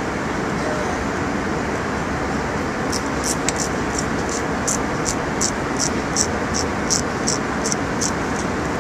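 Steady rushing noise of an airliner cabin. From about three seconds in, a regular run of short, high ticks comes about three times a second, with one sharper click among the first of them.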